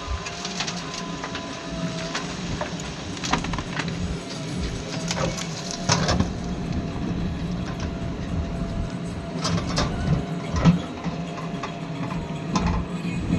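Diesel engine of a JCB 3DX backhoe loader running steadily at work, with repeated metallic knocks and clanks, the loudest about six seconds in and again near the end.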